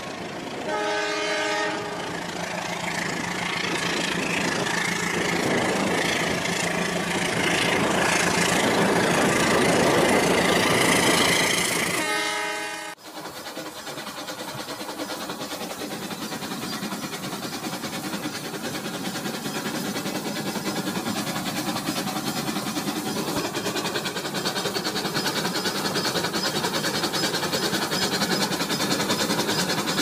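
Toy trains running on plastic track, their small electric motors and wheels giving a steady whirring clatter. A horn sound effect sounds briefly near the start and again just before an abrupt cut about two-fifths of the way through, after which another toy train runs on steadily, growing slightly louder.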